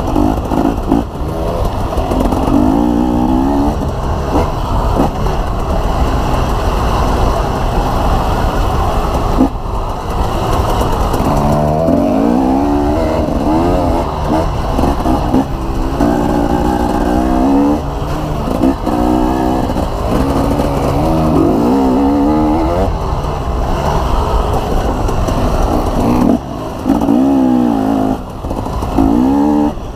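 Dirt bike engine revving up and down again and again, its pitch rising and falling with the throttle, over a steady low rumble.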